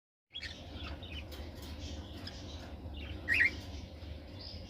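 Cockatiels chirping softly over a steady low hum, with one louder, short chirp a little past three seconds in.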